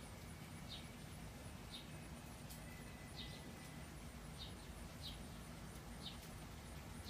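Small songbird giving short, sharp chip calls, about one a second, over a steady low hum.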